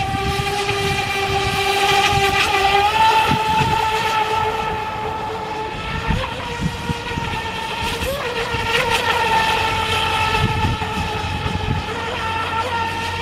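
Feilun FT011 RC speedboat's 4S brushless electric motor running near full power with a high, steady whine, its pitch and loudness rising and falling slightly as the boat turns at speed.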